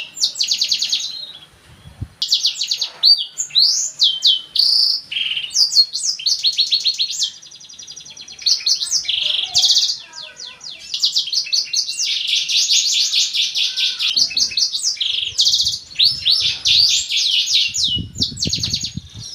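Black-throated canary (blackthroat) singing a long, fast song of rapid trills and sweeping high notes, with short breaks about two seconds in and again around eight seconds in. A few low bumps sound near the end.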